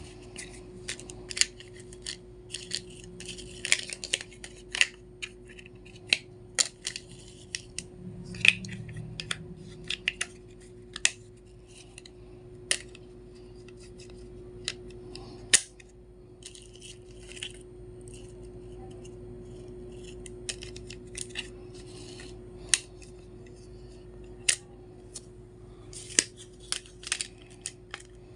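A package being unboxed by hand: many scattered sharp snips, clicks and crinkles of packaging being cut and handled, over a faint steady hum.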